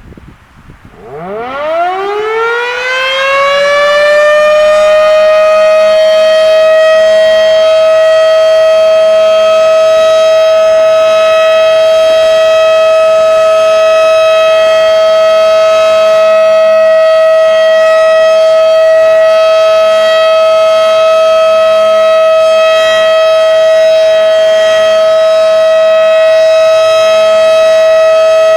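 Federal Signal Model 5/7 outdoor warning siren winding up about a second in, its pitch rising over a few seconds, then holding one steady, loud tone: the steady alert signal of a siren test.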